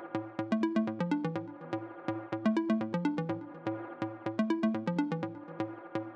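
Electronic background music: a looping synthesizer melody of short plucked notes over a steady bass line and drum-machine beat.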